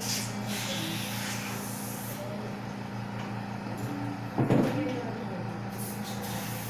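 Steady low mechanical hum from equipment in the room, with handling rustle in the first second or so and a single loud bump about four and a half seconds in.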